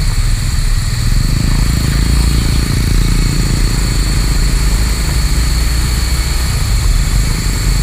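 Motorcycle engine running on the move, its pitch rising in the first few seconds as the bike speeds up, with steady wind rush on the camera's microphone.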